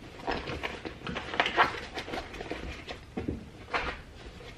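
Straps being wrapped around a rolled-up heavy canvas tool roll full of tools: irregular rustling and scraping of webbing and canvas, with a few soft knocks of the tools inside.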